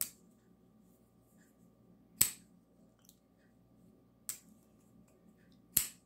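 QSP Canary folding knife reverse-flicked open and closed: four sharp clicks about two seconds apart. The two loudest are the blade snapping open and locking, the quieter ones the blade being closed.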